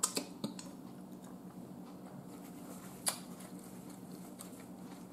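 Quiet eating sounds: a few wet mouth clicks and smacks from sucking butter sauce off fingers and chewing, the sharpest about three seconds in, over a steady low hum.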